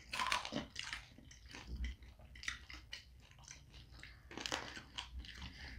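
Close-miked chewing of pizza, soft irregular crunching and mouth sounds, with a bite into a pizza slice about four and a half seconds in.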